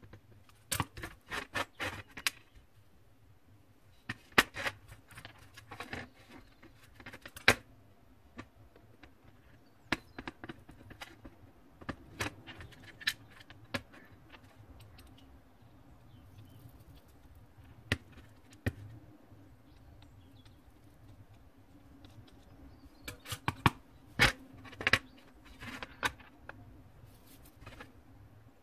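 Light metallic clicks and clinks of small tin-soldered jewellery pieces being handled and set down on a tray, coming in short clusters with pauses between.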